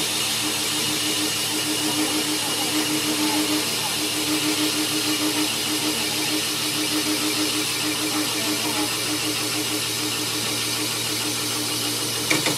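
Lathe and belt-driven tool-post grinder running, the grinding wheel held against the face of a spinning truck clutch part and throwing sparks: a steady grinding hiss over a rapidly pulsing motor hum. A short sharp clatter near the end.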